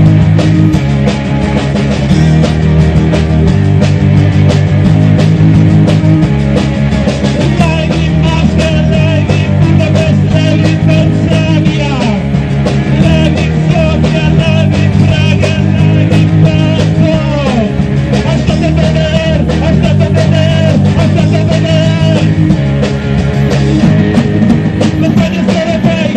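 Rock band playing live, loud: electric guitars, bass guitar and drum kit.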